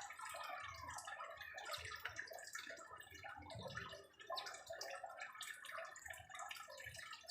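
A flock of small songbirds chirping and twittering, many short calls overlapping without pause.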